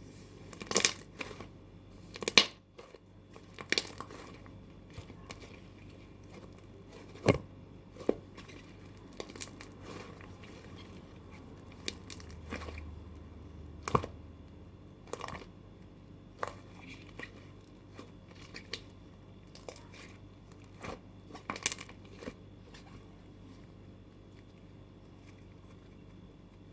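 Pink clay slime being handled, giving irregular sharp pops and crackles, often a second or more apart, the loudest in the first few seconds, thinning out near the end.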